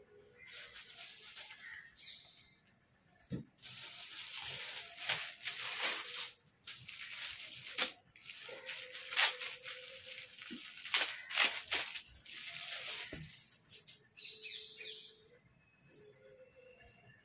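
Clear plastic packet crinkling and crackling as it is handled and opened, in several long rustling stretches with sharp crackles, dying down to a fainter rustle near the end.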